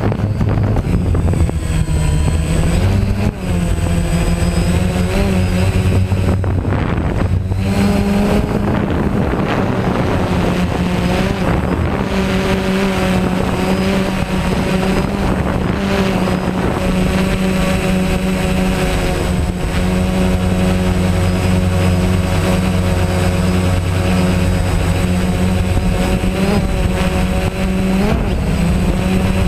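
DJI Phantom quadcopter's electric motors and propellers whining loudly, heard from on board. The pitch wanders up and down as the drone manoeuvres, most clearly in the first few seconds and again near the end.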